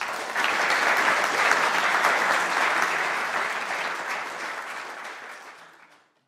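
Audience applauding, the clapping dying away over the last few seconds.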